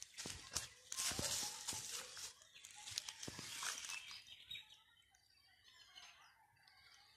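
Footsteps crunching through dry leaves and grass for the first few seconds, then a quieter stretch with faint bird chirps.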